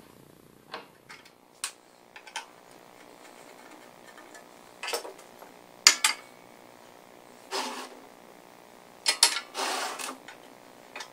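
Metal parts of a switched-off belt sander clinking and knocking as they are handled and moved, with a few short scrapes. The loudest knock comes about six seconds in, and a cluster of knocks and a scrape follows near the end.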